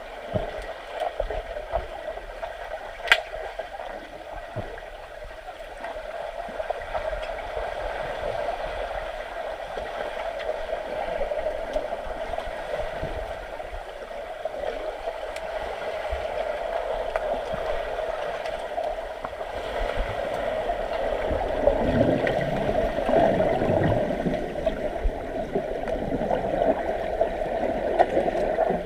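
Swimming-pool water gurgling and churning as players swim and tussle, a muffled steady wash with a sharp click about three seconds in. It grows louder and fuller from about twenty seconds in.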